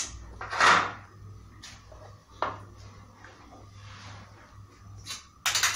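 Kitchen items being handled on a counter: a few scattered knocks and clicks, a louder brief scrape about half a second in and a short clatter near the end, over a low steady hum.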